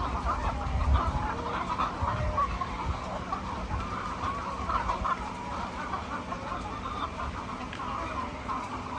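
A flock of laying hens clucking, many overlapping calls at once.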